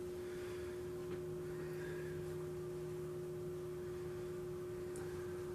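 Steady hum of a single tone, with a second, lower tone joining about a second in and dropping out near the end.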